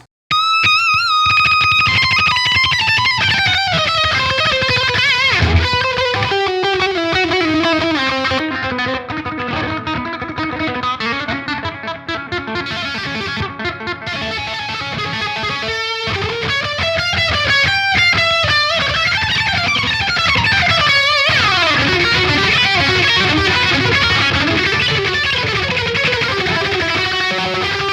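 Distorted electric lead guitar solo through the Mars Plexi #1 amp-simulator plug-in, playing a melody with bends, vibrato and fast runs, on a very saturated tone.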